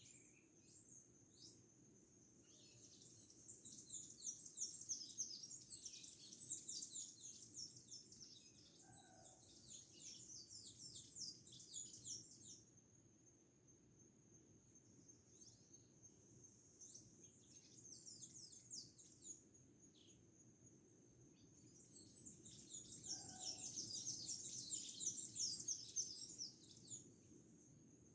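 Small birds twittering in dense, rapid high-pitched chirps, in two long bouts with a few scattered chirps between. A steady high thin tone and a faint low rumble run underneath.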